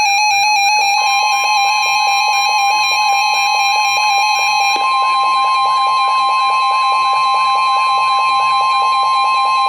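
NOAA Weather Radio warning alarm tone: a loud, steady high tone signalling that a warning, here a severe thunderstorm warning, is about to be read. A second steady tone with a fast ticking pattern sounds with it, and the second of the two tones joins about a second in.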